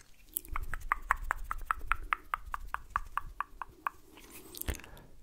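A rapid, even run of clicks close to a microphone as an ASMR trigger, about six a second for some three and a half seconds, followed by one louder click near the end.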